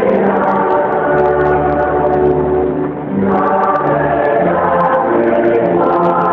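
Many voices singing a hymn together in held notes, with a short break about three seconds in.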